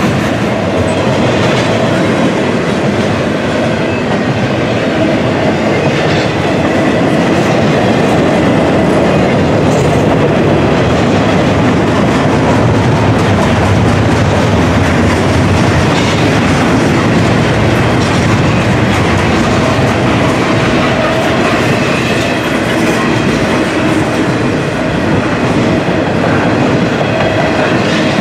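Double-stack intermodal container cars rolling by on steel wheels: a loud, steady rumble and clatter of wheels on the rails that does not let up.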